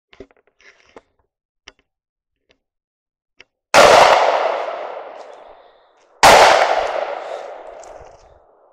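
Two shotgun shots about two and a half seconds apart, each echoing off and fading over about two seconds. They are a hunter firing at a rabbit run by the beagles.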